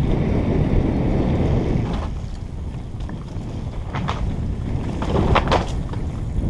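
Mountain bike ridden fast down a dirt trail: wind buffeting the helmet camera's microphone over the low rumble of the tyres, with a few sharp rattles of the bike over bumps about four seconds in and a louder cluster near the end.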